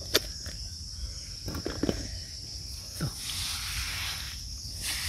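Steady high-pitched drone of an insect chorus, with a few short scrapes and squelches of hands digging through wet sand.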